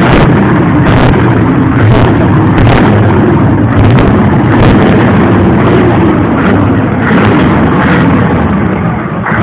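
Scania truck engine running loud and distorted through a tuned exhaust, with irregular sharp cracks about once a second.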